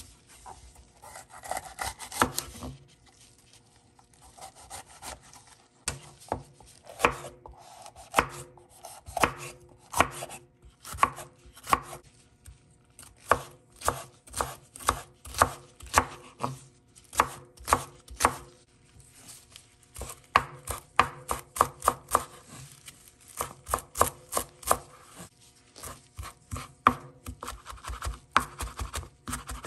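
Chef's knife chopping on a bamboo cutting board, first dicing red bell pepper, then chopping cilantro: a long run of sharp knife strikes on the board, irregular and sometimes coming in quick runs.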